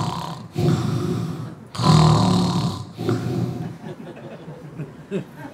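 A man imitating loud snoring into a microphone: three long snores, one after another about a second apart, trailing off after about three and a half seconds.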